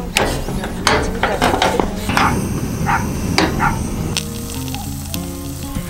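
Aluminium hot-sandwich press being clamped shut and set down on a camp stove's metal grate: several sharp metallic clacks in the first few seconds over a steady sizzling hiss of food frying on the gas burner.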